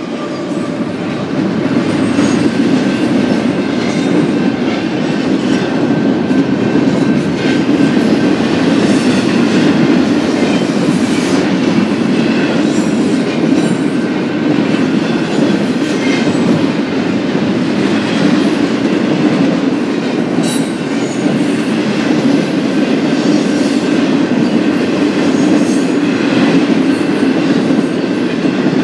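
BNSF intermodal freight train rolling past, its cars and wheels on the rails making a steady loud noise with light clicking.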